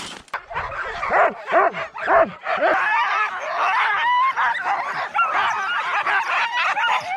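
A team of sled dogs in harness barking and yipping all at once, a continuous excited clamour of many overlapping high yelps and barks, the sound of dogs hooked up and eager to run.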